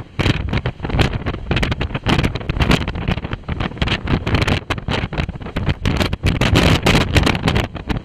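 Storm-force wind gusting near 90 mph, buffeting the camera microphone in a loud, choppy rumble that rises and drops many times a second.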